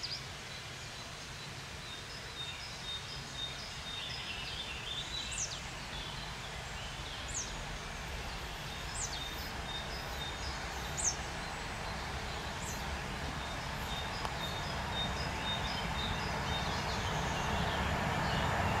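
Birds chirping, with several sharp down-slurred calls, over a low rumble that slowly grows louder toward the end as a freight train approaches from far down the line.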